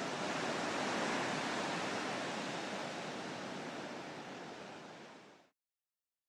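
Steady rushing wash of sea surf, fading out over about five seconds into silence.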